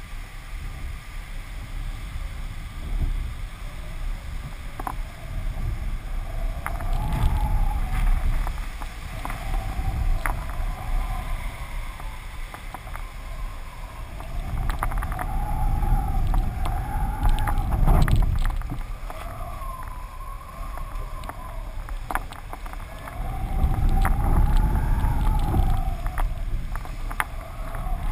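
Wind rushing over a camera mounted on a flying kite, with low rumbling gusts that swell and fade every few seconds, a thin wavering whistle, and occasional sharp ticks.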